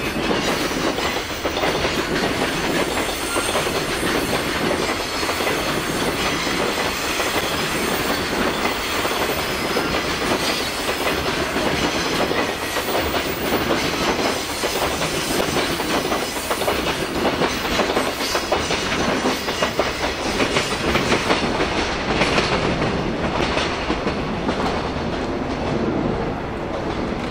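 Freight train of Koki container wagons rolling past, wheels clattering over the rail joints in a steady run of clicks. The sound eases near the end as the last wagons go by.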